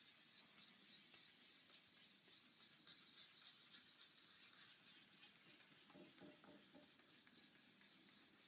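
Faint rubbing of wet 1000-grit sandpaper over a guitar body's waterborne lacquer finish, in quick even strokes.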